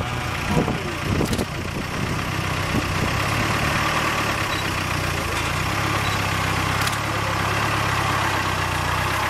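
Safari game-drive vehicle's engine idling steadily, a low even hum, with a few soft knocks in the first second or two.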